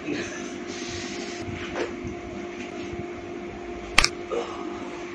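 Steady mechanical hum in a small room, with faint rustling, then one sharp crack about four seconds in: a joint popping as the client's back is cracked in a bear-hug spinal adjustment during a hilot session.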